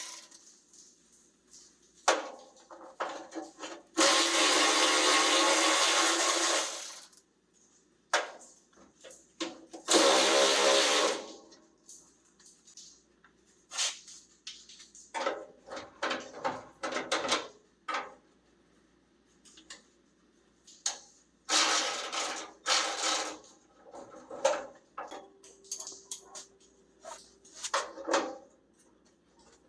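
Electric power tool, of the drill or driver kind, running in bursts as bolts are backed out: one long run of about three seconds, a shorter one, then two brief ones. Scattered clicks and knocks of tools and metal parts fall between the runs.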